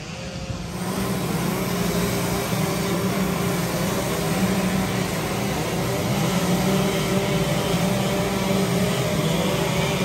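A chainsaw engine running, its pitch wavering up and down. It gets louder about a second in.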